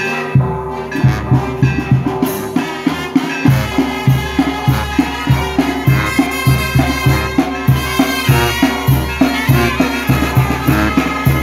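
Mexican marching brass band playing: sousaphone and brass horns over snare drum and a bass drum with a mounted cymbal. The bass drum comes in about three and a half seconds in and keeps a steady beat of about two strokes a second.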